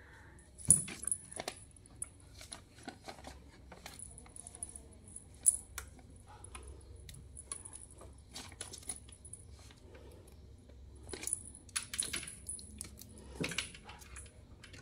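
Small bell on a kitten's collar jingling on and off as the kitten rolls and bats at a toy, with light taps and scratches on a tiled floor.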